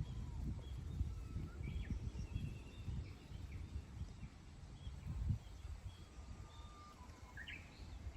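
Wild birds calling with scattered short chirps and brief whistles, over an uneven low rumble.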